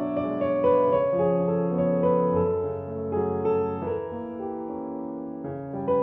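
Background music: soft piano playing sustained chords, quieter in the middle and swelling again near the end.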